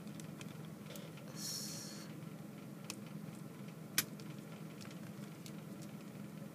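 Faint handling of a small ball-jointed doll and its clothes: a brief rustle about a second and a half in, and a few small clicks, the sharpest about four seconds in, over a steady low hum.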